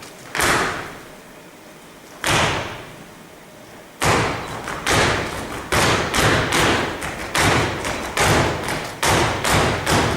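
Feet stamping on a stage floor in a dance done without music: two single heavy stamps about two seconds apart, then from about four seconds in a quicker run of stamps, two to three a second.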